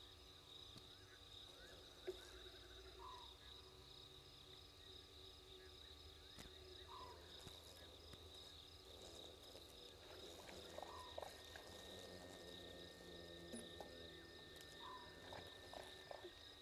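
Faint night-time insect chorus: a steady high-pitched trill, with a short call from another animal repeating about every four seconds.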